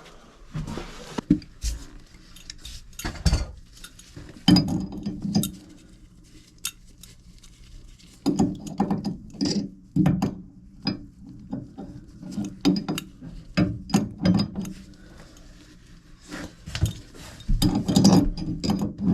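Tools and metal parts being handled: irregular clinks, knocks and clatter in several bursts, with some ratcheting.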